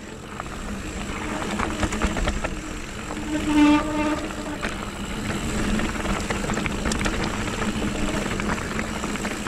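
Electric mountain bike rolling down a rough trail: steady tyre and wind rumble with light rattles. About three and a half seconds in, a short pitched tone sounds for under a second.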